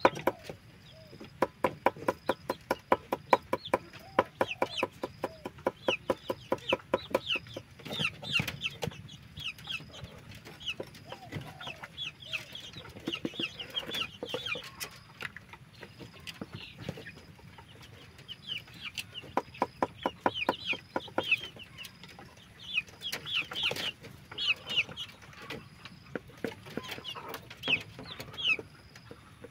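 A large knife chopping quickly and regularly on a wooden board, in runs of sharp knocks, loudest during the first several seconds and again about twenty seconds in. Chickens call throughout with many short, falling clucks.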